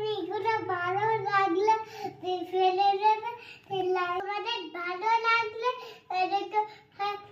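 A toddler girl's high voice singing a simple tune, phrase by phrase, with short breaks between phrases.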